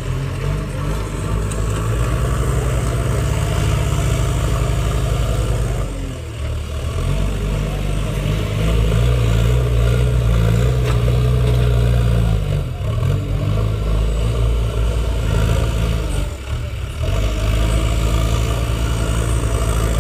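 JCB 3DX backhoe loader diesel engines working under load, revving up and down as the loader buckets dig and lift mud. The engine note drops briefly about six seconds in and again a few seconds before the end, then climbs back up.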